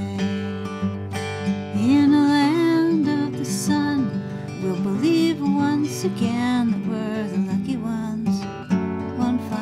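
A woman singing to her own strummed acoustic guitar. The voice comes in about two seconds in and sings phrases until near the end, over steady chords.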